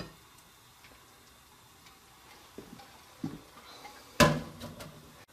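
Kitchenware being handled while hot brine goes into a jar: a few light knocks, then one sharp clack about four seconds in.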